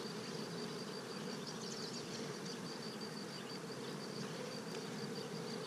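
Honey bees buzzing steadily over an open hive full of frames.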